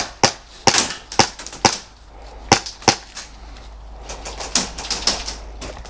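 Airsoft guns firing single shots in an exchange of fire: about a dozen sharp cracks at uneven intervals, closely bunched in the first three seconds and sparser and fainter after.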